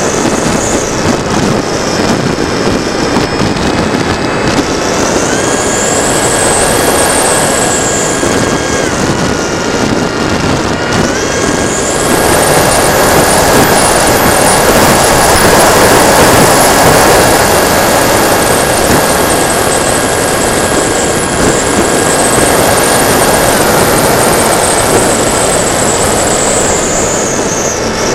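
TechOne Mercury RC plane's electric motor and propeller, heard through its onboard camera: a steady whine that steps up and down in pitch a few times as the throttle changes, over loud wind rush.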